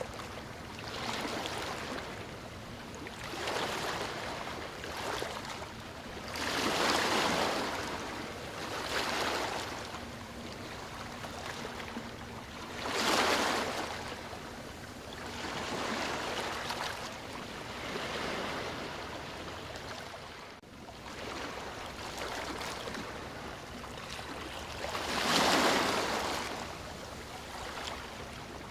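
Sea waves breaking and washing in, a steady rush of surf that swells and falls every few seconds, with three bigger waves: one about seven seconds in, one about thirteen seconds in and one near the end.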